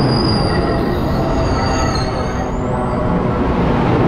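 Amtrak passenger-car wheelsets rolling over the rails directly overhead: a loud, steady, heavy rumble with a thin, high-pitched wheel squeal that wavers over it.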